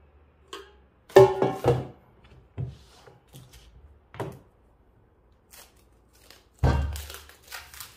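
Aluminium camping cookware being handled on a wooden table: a cluster of sharp knocks with a brief metallic ring as a pot is set down, a few lighter knocks, then a heavier thunk near the end.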